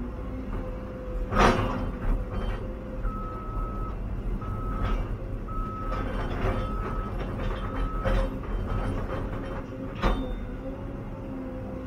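Caterpillar 316EL excavator's diesel engine running steadily, heard from inside the cab. An alarm beeps about once a second for several seconds in the middle, and two sharp knocks stand out, the loudest about a second in and another near the end.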